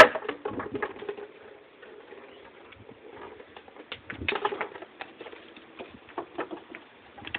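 A dog's paws and claws scrabbling and tapping on wooden deck boards as it runs and turns in play: a burst of sharp clicks and knocks at the start and another a little past four seconds in, with a couple of short low-pitched sounds among them.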